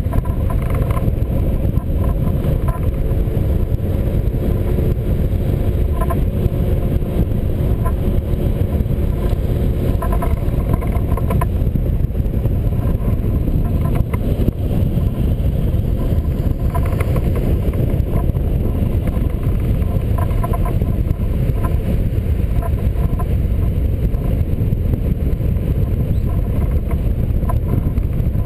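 Airflow rushing over the microphone of a wing-mounted camera on a hang glider in flight: a loud, steady low rumble of wind noise.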